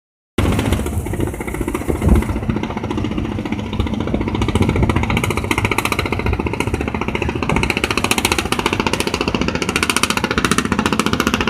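A fishing boat's engine running with a fast, even chugging that starts abruptly about half a second in.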